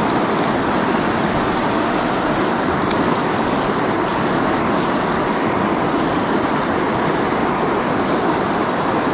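Fast-flowing river water rushing close by: a loud, steady noise without a break.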